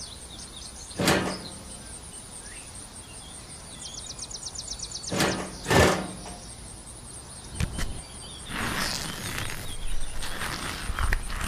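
Outdoor background noise with a steady thin high-pitched whine. Short brushing or rustling noises come about a second in and twice near the middle, with a fast ticking patter just before them and a longer stretch of rustling near the end.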